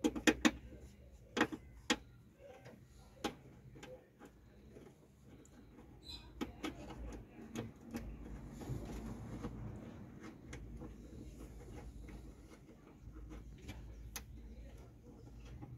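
Hands working on ignition wiring at a car's coil, fitting a ground wire: a quick cluster of sharp clicks and knocks in the first two seconds and another about three seconds in, then softer rustling and handling noise with scattered ticks.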